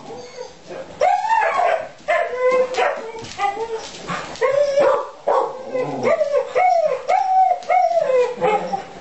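A dog vocalizing in a string of short pitched calls, each rising and falling in pitch. The calls come faster and closer together in the second half.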